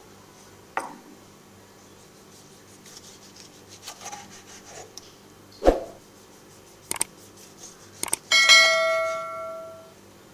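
Kitchenware knocking and clinking a few times, then a metal utensil striking a piece of metal kitchenware once, which rings with a clear tone for about a second and a half.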